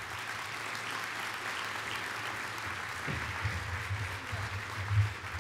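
Audience applauding steadily, with low thumps close to the microphone in the second half, the loudest near the end.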